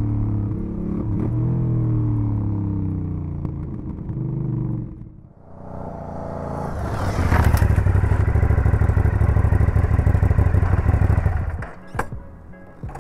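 Aprilia Dorsoduro V-twin motorcycle engine running on the road, its pitch falling as it slows and fading out about five seconds in. Then the engine runs loudly and close with a fast, even beat for about five seconds, stops abruptly near the end, and a few sharp clicks follow.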